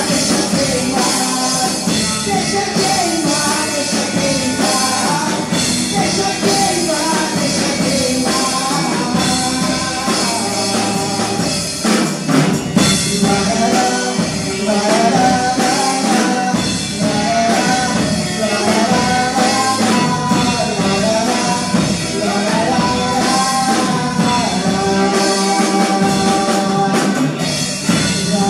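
Gospel song sung over a full band with drum kit; the singing melody carries on over the band throughout.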